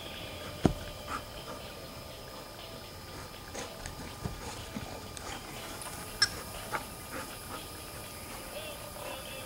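Alaskan Malamute puppy playing with a ball on grass: scattered light knocks and rustles, with a sharper knock just under a second in and another about six seconds in, over a steady faint hum.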